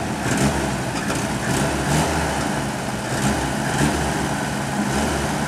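1952 GMC truck's straight-six engine idling steadily just after starting, on its first run after sitting for over 20 years.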